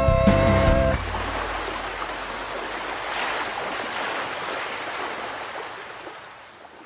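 Intro music stops about a second in. A hiss of sea waves washing follows; it swells and then slowly fades away.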